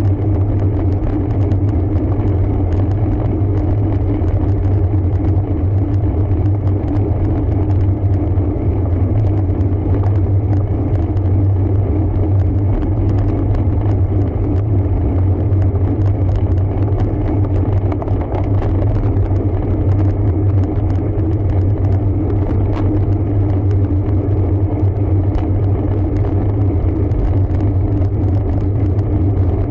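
Steady low rumble of wind and road noise picked up by a camera riding on a road bike, with no break or change.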